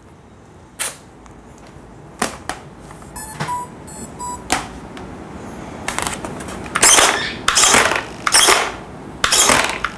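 An RC jet's electronics powering up: a few clicks, then short electronic beeps from the speed controllers arming about three seconds in. From about six seconds, a quick series of short mechanical bursts roughly every half second as the electric landing-gear retracts are cycled.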